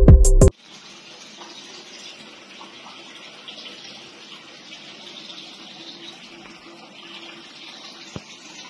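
Music cuts off abruptly about half a second in, followed by water running steadily in an aquaponic system's fish tank and grow bed, with one sharp click near the end.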